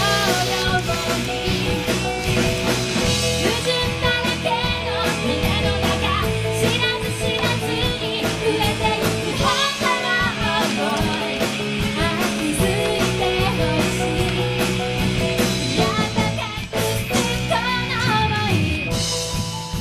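Background rock song with a singer over guitar and a drum kit keeping a steady beat.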